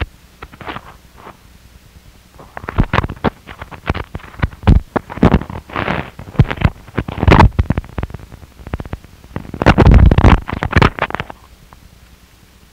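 Harsh noise music: faint noise with a few small bursts at first, then from about two and a half seconds in a dense run of irregular noise bursts that cut in and out abruptly, dropping back to a faint hiss over a second before the end.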